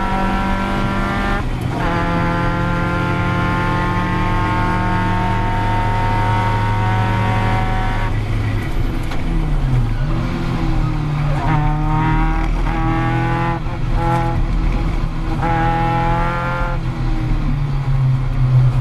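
Caterham Seven's 2.3-litre Ford Duratec four-cylinder engine heard from the cockpit, pulling hard with an upshift about a second and a half in, then holding a steady high pitch. About eight seconds in it comes off the throttle for braking, with several quick rising revs on downshifts, and it picks up again near the end.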